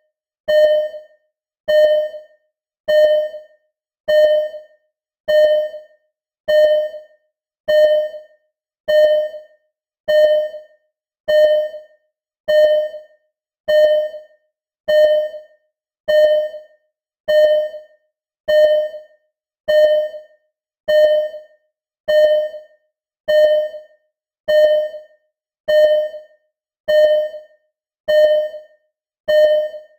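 Simulated ECG heart-monitor beeping. A short pitched beep repeats at a steady rate, a little more than one a second, and each beep dies away quickly.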